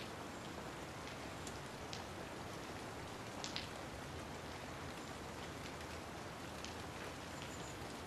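Steady rain, an even hiss, with a few sharp drip taps standing out, two of them close together about three and a half seconds in.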